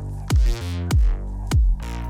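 Electronic dance music with a heavy kick drum hitting about every 0.6 seconds, three times here, under sustained synth tones and swelling sweeps.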